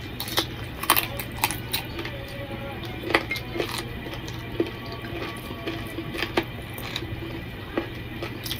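Wet clicks and smacks of eating rice by hand, the sharpest sounds, over a steady low hum, with a call to prayer (azan) sung faintly in held notes from a mobile phone in the background.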